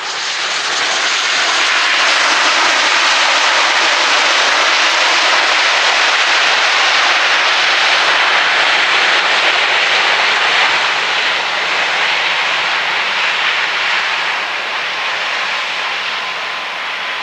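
Bombardier Global 6500 business jet's twin turbofan engines on the landing roll, ground spoilers up: a loud, steady jet rush that swells over the first two seconds and eases a little in the last several seconds. A faint thin whine comes in near the end.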